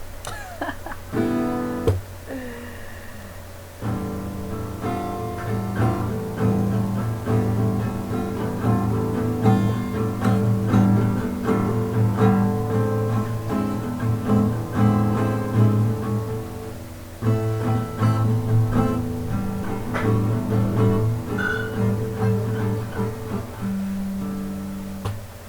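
Music led by plucked guitar, with a short break partway through before the playing resumes.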